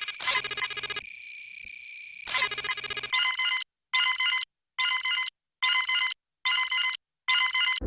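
Electronic ringing tone, like a phone ringtone: a fast trilling stretch, then six short even rings about 1.3 a second, each cutting off sharply.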